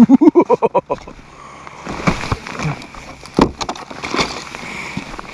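A person laughing: a quick run of short pitched pulses that climbs in pitch over about the first second, followed by scattered knocks and brief bits of voice.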